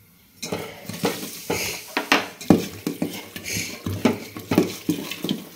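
Fermented appam rice batter being stirred, the utensil scraping and knocking against the vessel in an irregular run that starts about half a second in.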